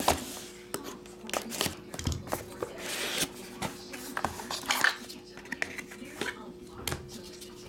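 A cardboard trading-card box being opened and handled: the lid sliding off, and the box and a hard-cased card tapping and scraping against each other and the table in a string of short clicks and rustles.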